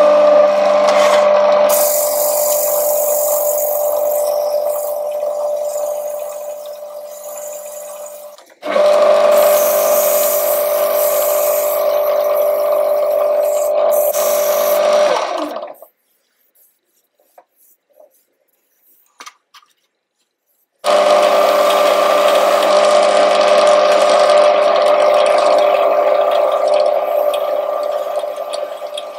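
A wood lathe runs with a steady motor hum and a higher hiss of turning tools working a spinning Australian lacewood bowl. About halfway through, the sound cuts off abruptly into near silence with a few faint ticks. About five seconds later it comes back at full level.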